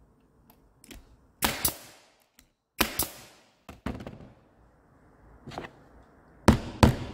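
Staple gun firing staples through upholstery fabric into a chair seat frame: four loud sharp shots in two quick pairs. Near the end, a small hammer tapping the staples home with several quick light strikes.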